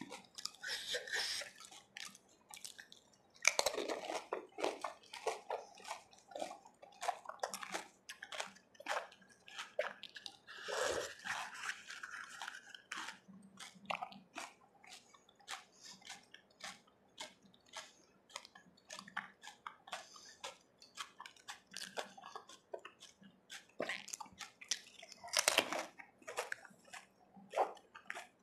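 Close-up eating of pani puri: crisp hollow puris crunched and chewed wet, full of spiced water, with many small crackles and smacks. Water splashes as the puris are dunked in the pani. The loudest crunches come about four seconds in and near the end.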